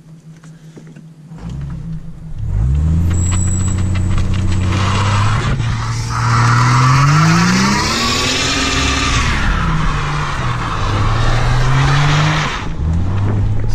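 Ford AU Falcon ute doing a burnout: the engine comes in about a second and a half in and is held at high revs, and from about four seconds in the rear tyres spin and squeal over it, the engine pitch climbing and falling back. Near the end the revs drop briefly, then pick up again.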